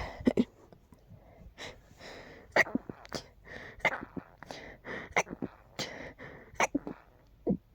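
A person's rapid series of short, sharp hiccup-sneezes, about one every half second, with breaths drawn in between.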